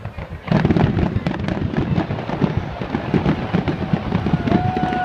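Aerial fireworks shells bursting overhead in quick succession, a dense crackling of reports that jumps up in loudness about half a second in. Near the end a steady high tone begins and holds.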